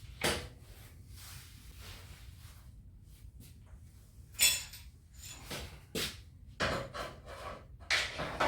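A series of knocks and clanks as steel parts and clamps are handled, the loudest a ringing metallic clank about four and a half seconds in, with several more knocks near the end.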